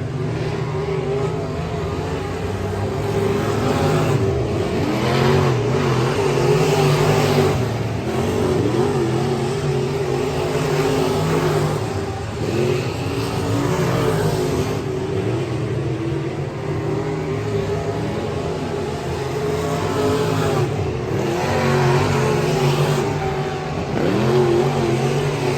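Race car engine running hard on track, its pitch rising and falling again and again as it revs up and eases off, with the loudness swelling every few seconds.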